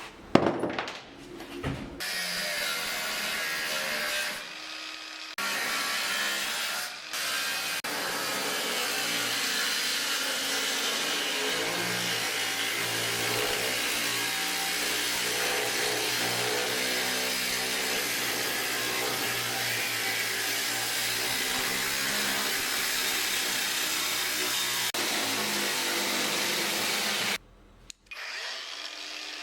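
Handheld power tool running steadily on car bodywork, with a couple of short dips early on, stopping abruptly near the end.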